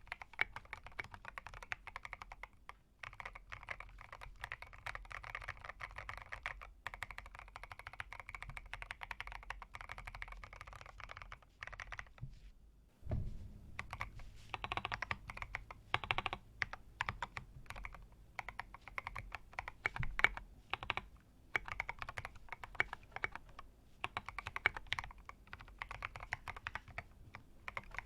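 Mechanical keyboard being typed on: C3 Equalz Kiwi tactile switches, lubed and filmed, in a BM65 with a steel plate. Fast, continuous key clacks, a short break about twelve seconds in, then typing resumes with more spaced, harder keystrokes.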